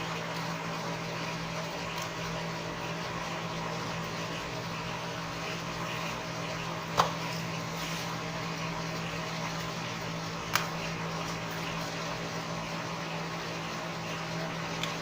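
Steady machine hum, like a fan, under two sharp clicks about three and a half seconds apart and a faint third near the end, as small plastic and metal parts of the phone are pried and handled during disassembly.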